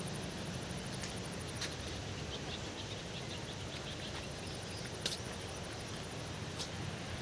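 Outdoor ambience with a high, steady pulsing insect trill over a low rumble, a short run of faint chirps in the middle, and a few sharp clicks.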